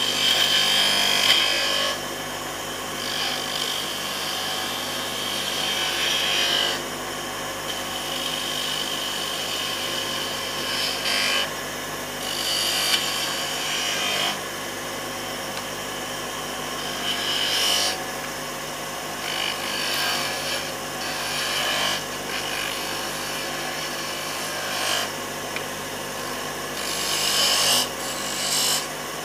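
Wood lathe running steadily while a turning chisel cuts into a spinning wooden blank, shaping beads. The cuts come in repeated bursts of a second to a few seconds each, loudest about a second in and again near the end.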